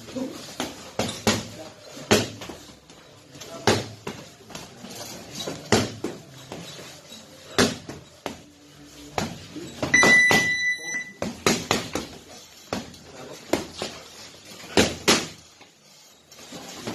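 Boxing gloves landing punches in sparring: irregular sharp slaps and thuds of gloves on gloves and bodies. About ten seconds in, a high electronic beep sounds for about a second.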